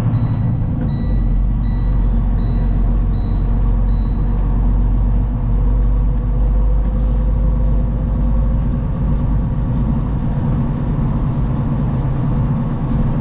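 A semi truck's engine and road noise inside the cab while driving, a steady low rumble. A row of short high beeps repeats about every two-thirds of a second through the first four seconds.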